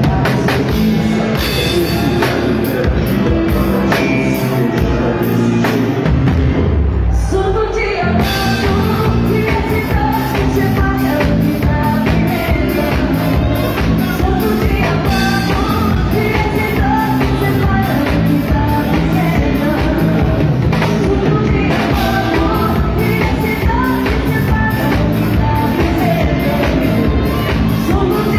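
Live band playing dance music: drum kit with a steady cymbal beat, electric bass, and a lead voice singing over the band. The cymbals drop out briefly about seven seconds in, and the singing carries on from there.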